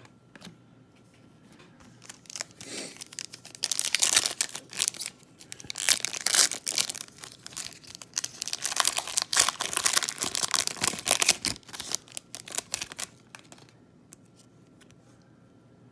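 A trading-card pack's wrapper being torn open and crinkled, in several bursts of tearing and rustling that start a few seconds in and stop a couple of seconds before the end, with light clicks of cards being handled between them.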